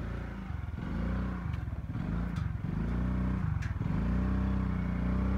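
Honda scooter engine revved repeatedly while standing, its pitch rising and falling about four times and held higher near the end.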